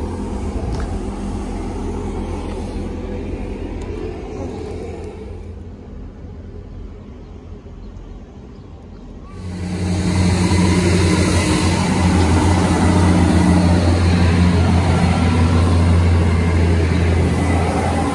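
Great Western Railway diesel multiple unit's engine running with a steady low hum, turning much louder about halfway through as the train moves off past a level crossing.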